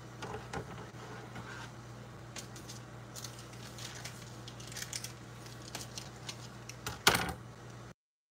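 Homemade ring doughnut frying in shallow hot oil in a frying pan: light crackling with scattered small pops over a steady low hum, and one sharp, louder pop about seven seconds in. The sound cuts off abruptly just before the end.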